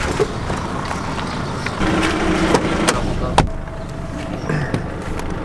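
Vehicle towing a boat trailer, rolling slowly over cobblestones: a steady low rumble of tyres and engine with scattered clicks and knocks, and one heavier thump about three and a half seconds in.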